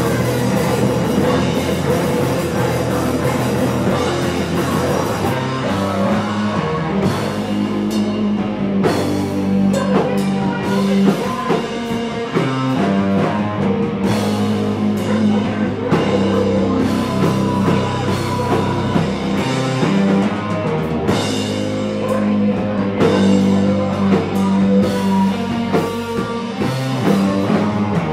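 Live rock band playing loudly, with drum kit hits and sustained guitar and bass notes.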